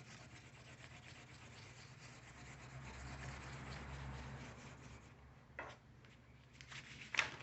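Faint rubbing and scraping on a surface, with two short knocks, one about two-thirds of the way in and one near the end.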